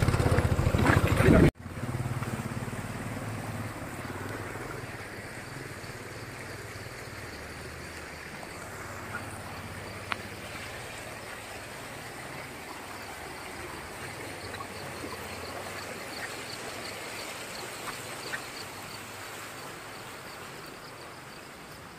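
Shallow stream running over stones, a steady even rush, with a few faint clicks. It opens with a brief loud burst of a motorcycle engine running that cuts off abruptly about a second and a half in.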